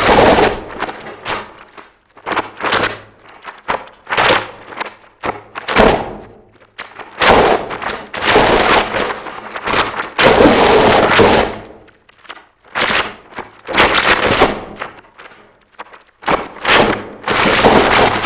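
Harsh noise music: blasts of dense, distorted noise that cut in and out abruptly at an uneven pace, some short stabs and some held for a second or two.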